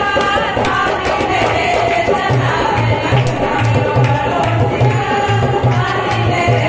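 Women singing a languriya devotional folk song, with a steady low drum beat about two and a half strokes a second joining a little over two seconds in.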